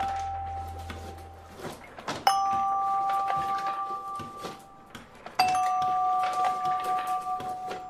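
Bell-like chime sound effects, each a two-note ding with a sharp start that rings and fades over two to three seconds: one dies away early on, and new ones strike about two seconds in and about five seconds in. Faint scratchy marker-on-whiteboard sounds run between the chimes.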